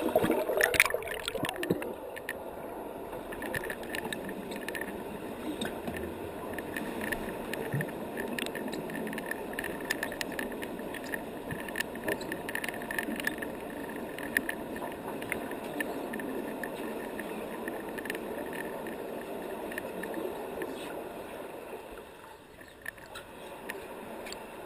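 Splashing as the action camera goes under the pool surface, then steady muffled underwater noise heard through the camera's waterproof housing, with scattered faint clicks.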